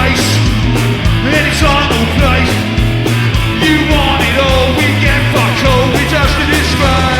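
Punk rock band playing live: loud, driving full-band music with regular drum hits and a sung lead vocal.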